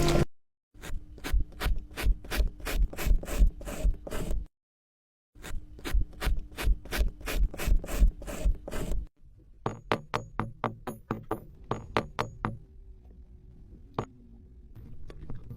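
Sand being scraped or cut in quick repeated strokes, about three or four a second, in two runs broken by a brief silence, then softer strokes and a single click near the end.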